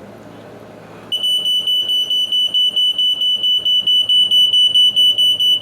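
Smoke detector sounding its alarm after its test button is pressed: a loud, high-pitched beeping, pulsing several times a second, starting about a second in.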